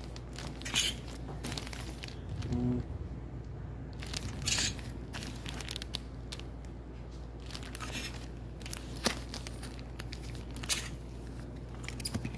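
Clear plastic garment bags on hanging shirts crinkling and rustling as a hand handles them, in sharp crackles every second or two over a steady low hum.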